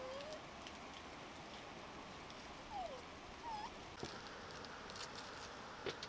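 Three short squeaky calls from a young animal, each a quick falling note; the last is shorter and hooked, about three and a half seconds in. A few light clicks and taps follow near the end.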